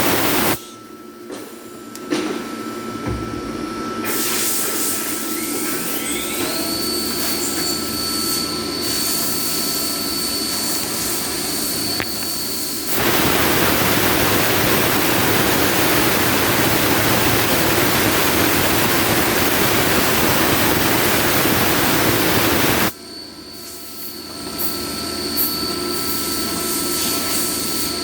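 CNC milling machine running with emulsion coolant: steady machine whine with a tone that rises and then holds about six seconds in, and a long, loud, even hissing rush through the middle.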